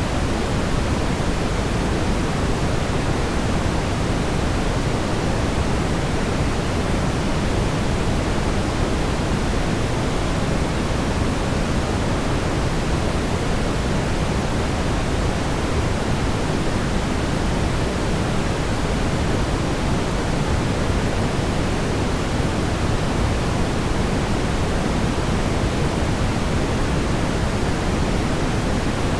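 Steady brown noise: an even, unchanging rumbling hiss weighted toward the low end, with no tones or events.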